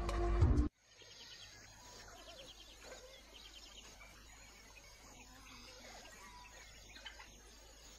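Music cuts off abruptly under a second in. After it, faint dawn bush ambience: scattered bird calls and chirping insects over a steady high insect drone.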